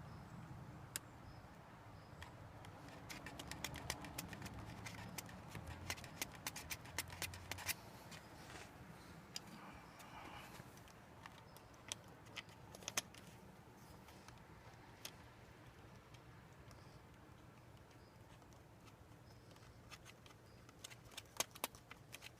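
Faint small metallic clicks and taps of hand tools on motorcycle fasteners as a headlight bracket is tightened down, with a cluster of quick clicks a few seconds in and scattered ones later.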